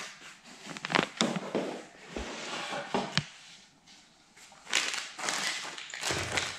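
Handling of flat-pack furniture parts: a plastic bag of fittings crinkling, then white furniture panels being picked up and laid down on a hardwood floor, with a few short knocks and a stretch of rustling near the end.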